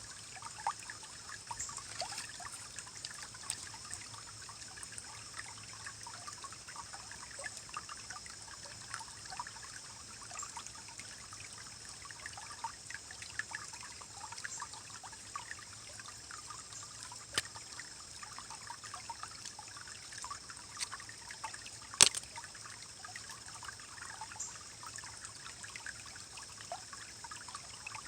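Forest stream rippling and trickling, with many small gurgles and bubbling pops over a steady wash of water. One sharp click stands out late on.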